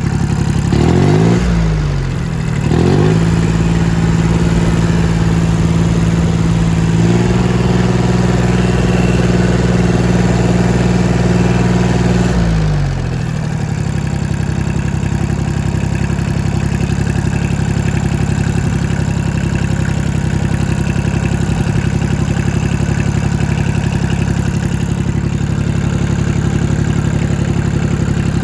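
An engine being revved: two quick blips of the throttle, then held at a raised speed for about nine seconds, then dropping back to a steady idle.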